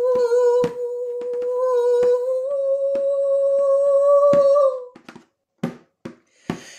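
A woman's voice chanting a cappella, holding one long hummed note for about five seconds that steps up slightly in pitch halfway through, then stops. After it come a few soft clicks and an intake of breath.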